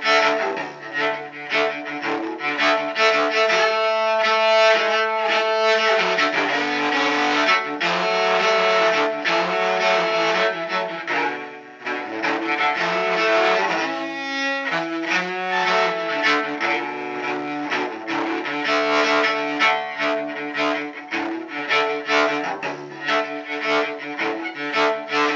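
Bowed cello playing an instrumental break in old-time style, with quick bowed notes and double stops sounding two pitches at once.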